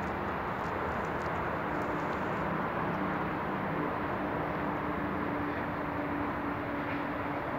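Steady rushing outdoor noise with a low, steady hum running through it.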